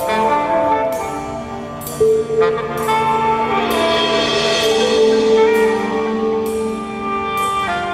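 Marching band playing: held wind-instrument chords with mallet percussion, a sharp accent about two seconds in and a swelling, brighter passage in the middle.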